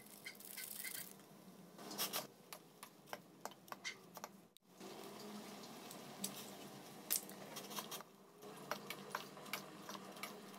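A pot of instant noodles simmering in broth, a faint steady bubbling with many small irregular pops and clicks. The seasoning packet rustles at the start, and a wooden spoon stirs the noodles near the end.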